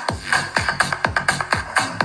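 Electronic dance music with a fast, steady kick-drum beat, about four kicks a second, played as a bass and clarity test through a JBL Stage 2 604C 6.5-inch two-way component speaker set.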